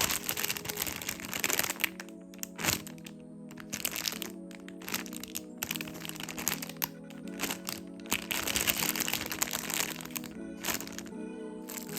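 Background music with sustained tones, over frequent irregular crackling and crinkling.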